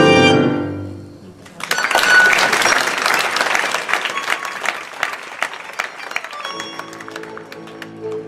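Live tango quartet of bandoneon, piano, violin and double bass ends a fast falling run about a second in; the audience then applauds for about five seconds. Near the end the quartet's sustained chords come back under the last of the applause.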